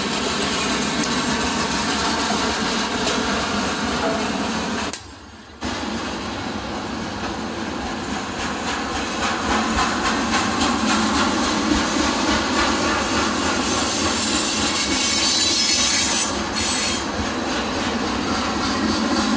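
Freight cars loaded with containers rolling steadily past on the rails, a continuous rumble of wheels with a thin squeal over it. The sound drops out briefly about five seconds in.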